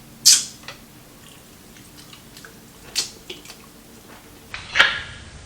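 Close-up bites into crispy fried chicken: three loud crunches, about a second in, around three seconds and near the end, with softer chewing clicks between.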